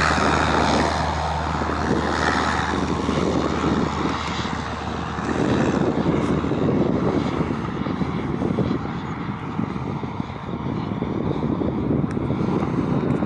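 Turbine engine of a radio-controlled Black Horse Viperjet model jet in flight: a steady jet rush, loudest at the start and fading as the jet flies off into the distance, with a low rumble underneath.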